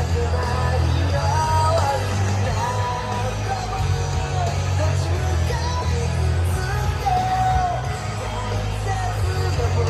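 Music with a sung melody over a steady, heavy bass.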